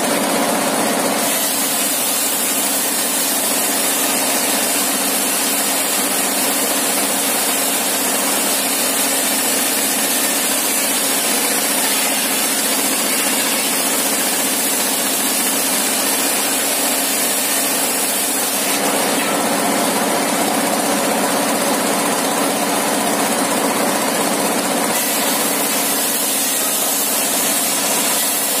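A stationary engine drives a 60-inch circular sawmill blade, running steadily as thin boards are ripped from timber. The sound changes as planks pass through the blade, near the start and again for several seconds about two-thirds of the way in.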